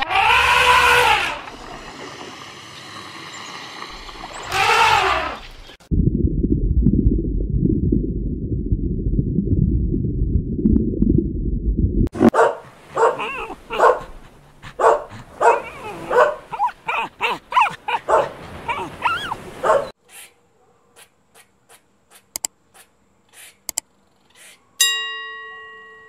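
An African elephant trumpets twice, followed by several seconds of steady low rumbling noise. Then a Jack Russell terrier barks over and over, about two barks a second, for several seconds. Near the end come a few light clicks and a ringing bell-like chime.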